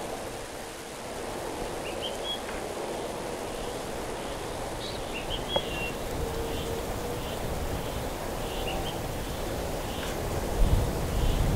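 Riverbank ambience: a steady rush of wind and flowing water, with small birds chirping now and then. Near the end, wind buffets the microphone with a low rumble.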